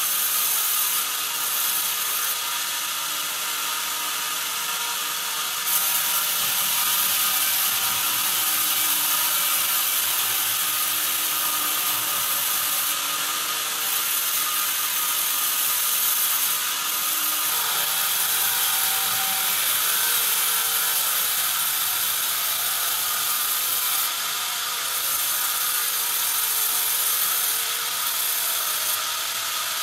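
Vertical band sawmill running, its blade cutting lengthwise through a squared softwood timber fed on a log carriage. It makes a steady, high hiss that grows brighter and duller in stretches of a few seconds.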